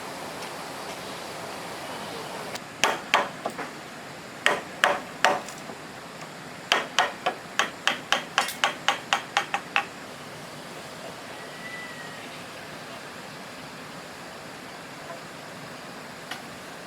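Hammer blows on wood, as when nailing: a few strikes, a short pause, a few more, then a quick steady run of about a dozen blows.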